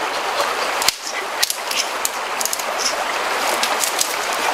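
Steady rush of stream water, with a few short sharp crackles of branches and leaves as they are pushed aside.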